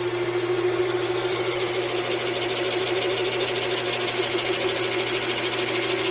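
Machine tool running steadily while the cutting tool takes a light spring pass in the pilot bearing bore of a cast small-block crankshaft: a steady hum with a cutting hiss that grows after a second or so.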